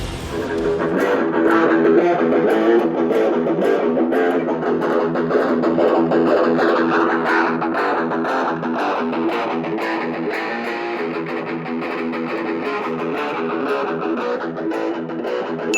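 Music led by electric guitar, with a steady beat.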